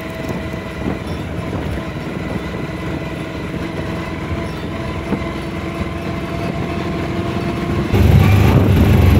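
Steady engine and road noise from a moving vehicle in traffic. About eight seconds in it turns louder and deeper: the engine rumble heard inside the passenger cabin of a shared auto-rickshaw.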